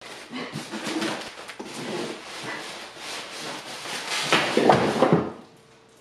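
Styrofoam packaging blocks scraping and squeaking against each other and against the plastic-wrapped espresso machine as it is pulled out of the box. About four seconds in, a louder clatter as a loose part falls.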